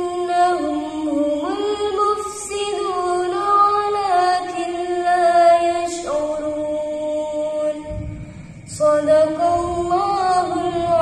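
A woman's voice reciting the Quran in melodic tartil style: long held notes that step up and down between pitches, with a short break for breath about eight seconds in.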